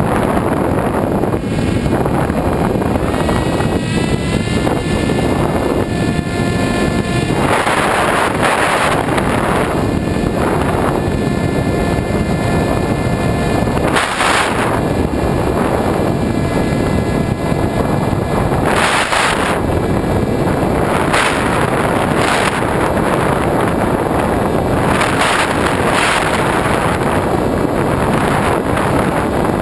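Airflow rushing over the onboard camera of an RC foam glider in flight: steady wind noise, with louder gusts swelling every few seconds. A faint whine rises in pitch about three seconds in, then holds steady for a few seconds.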